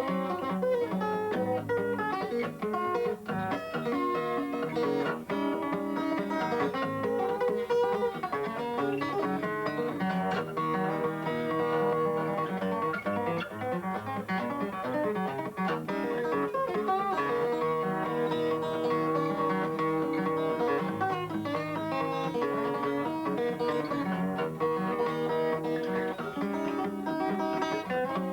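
Guitar music: a plucked guitar picking a steady, busy tune, in the Muhlenberg County thumbpicking style.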